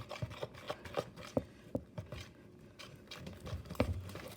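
A fork stirring wet, sticky slime mixture in a bowl, with irregular clicks and taps of the fork against the bowl and soft squishing, as the laundry detergent activator is worked into the glue and the slime starts to form.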